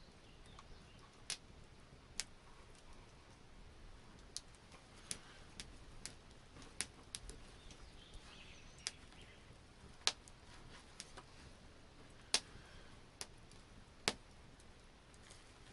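Scattered sharp clicks and ticks at irregular intervals, about fifteen in all, the loudest three in the second half, over a faint steady background.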